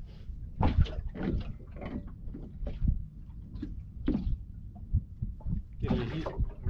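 Irregular knocks and thumps of fishing gear being handled in a small boat, over a steady low rumble.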